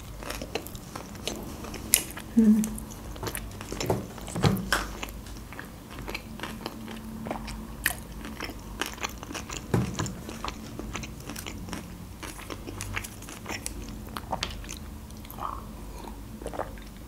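Close-miked chewing of a mouthful of sushi roll, with many small wet mouth clicks and smacks and a few brief low hums. Near the end comes a sip from a glass of juice.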